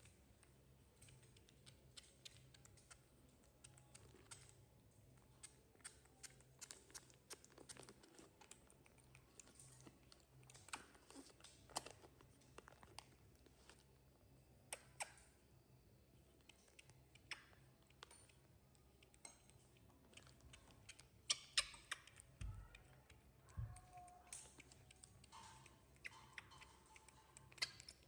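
Faint, scattered small clicks and taps in a quiet room: a baby monkey handling and eating cake, with a few louder taps a little after the middle.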